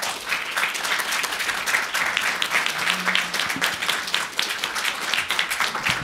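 Audience applauding: dense, steady clapping from many people.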